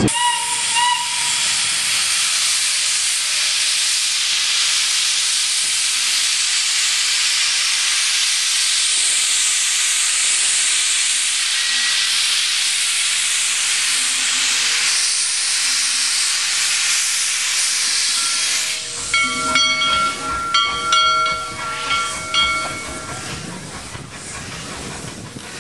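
Shay geared steam locomotive No. 7 venting steam in a loud, steady hiss. About 19 s in, its steam whistle sounds in a quick run of short blasts over a low rumble, and then the sound dies down.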